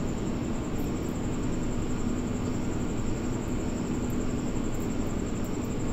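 Steady background hum and hiss with a constant low tone and no distinct events.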